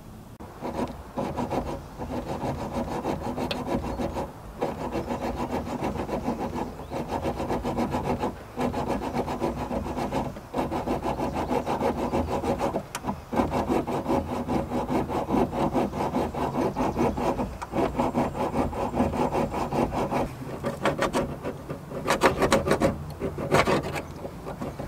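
A bare hacksaw blade, tape wrapped on as a handle, sawing back and forth through a rusted metal transmission cooler line in short, rapid strokes. The sawing stops briefly every few seconds, and the strokes get louder near the end.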